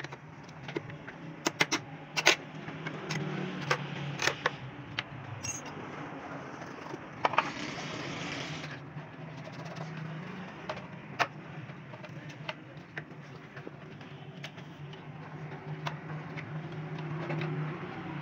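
Scattered clicks and taps of a plastic tail-light housing being handled and worked with a screwdriver, with a rough scrape of about a second and a half midway through. A steady low hum runs underneath.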